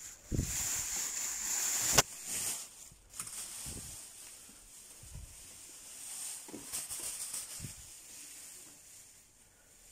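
Rustling of a heap of fresh-cut grass and wood-shaving bedding, loudest in the first two seconds, with one sharp click about two seconds in. Softer rustles and a few soft thumps follow.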